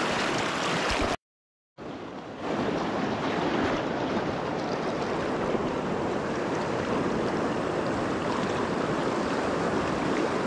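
Deschutes River current rushing fast and steady, a dense wash of water noise. A little over a second in the sound cuts out completely for about half a second, comes back quieter, and is at full level again a moment later.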